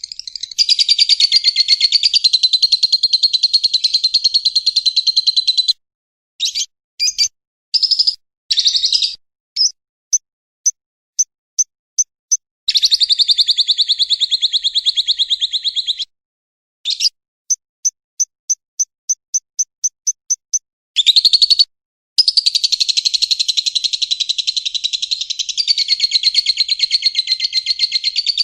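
Songbird recording: long stretches of rapid, high-pitched trilling chatter, broken in the middle by short chirps and two runs of short evenly spaced notes, with abrupt silent gaps between phrases.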